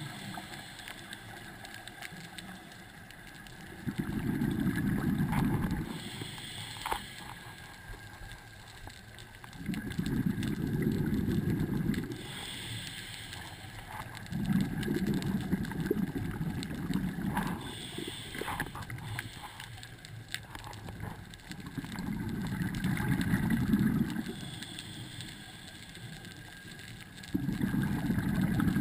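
Scuba divers' regulator breathing underwater: a burst of exhaled bubbles about every six seconds, five in all, alternating with short, fainter hisses of inhalation through the regulator.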